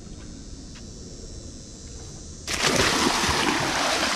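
An American alligator lunges out of the pond water and thrashes as it strikes at the bait, making a sudden loud splashing that starts about two and a half seconds in.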